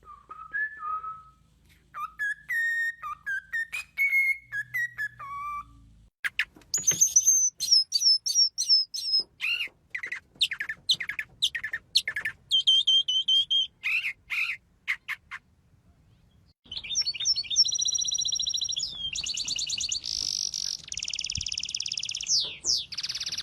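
Small birds calling and singing. Whistled notes come first, then sharp downsweeping chirps. After a short pause there are fast trills near the end.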